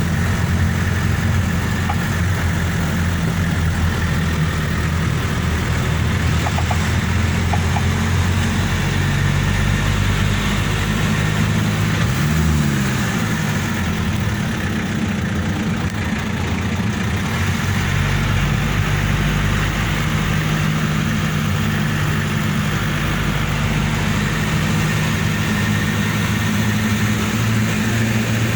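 A vehicle's engine running steadily, its pitch changing through the middle, with a brief rise and fall in engine note about halfway through.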